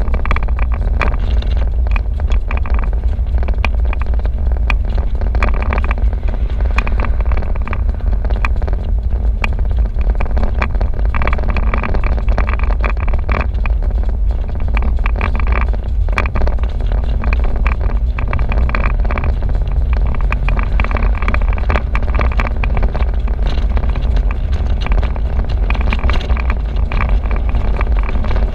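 Convertible car driving with the top down: steady wind buffeting on the microphone over the car's engine and road noise.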